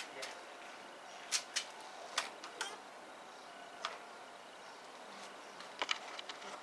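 Scattered light clicks and taps, about eight sharp ticks at uneven spacing, some in quick pairs, over a faint steady hiss.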